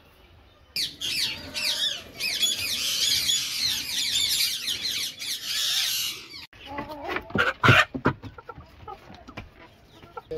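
A dense chorus of many small birds chirping from about a second in, cut off abruptly after about six seconds; then chickens clucking, a few of the calls very loud.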